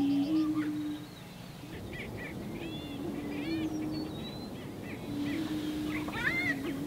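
Male greater prairie chickens booming: low, hollow moaning notes about a second long, made with their inflated orange neck air sacs, repeated every two to three seconds. Short higher calls come over them from the birds on the lek.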